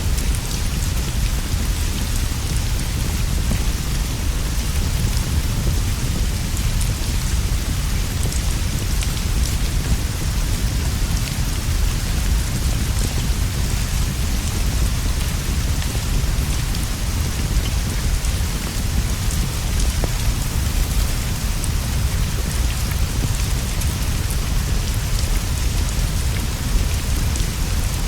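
Steady rainfall with a constant deep low rumble underneath and many faint scattered ticks of drops through it.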